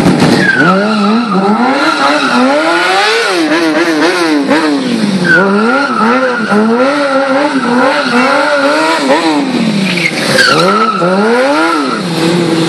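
Sport bike engine revving up and down about once a second while the rear tyre squeals in three long stretches, the sound of the bike sliding through stunt circles on the skid pad.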